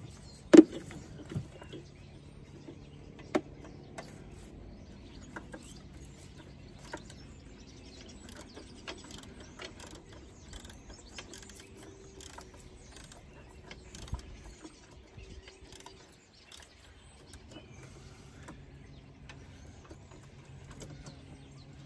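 Ratchet spanner clicking in short, irregular runs of small ticks while a bolt is worked loose by hand, with a sharp metallic clack about half a second in and a few more knocks of tool on metal in the first few seconds.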